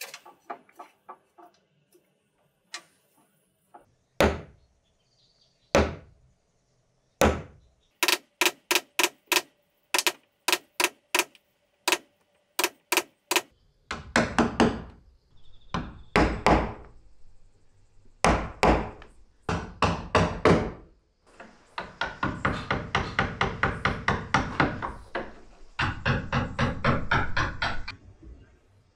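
Hand hammer striking a steel chisel into the bent-wood ring of a moon door frame. Single sharp blows come about a second and a half apart, then quick runs of taps, then heavier strikes with a dull thud, ending in a fast steady patter of small blows.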